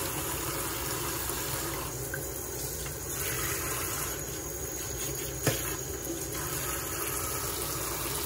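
Kitchen faucet running onto fish fillets in a stainless steel sink as hands rub and rinse them under the stream. A single sharp knock about five and a half seconds in.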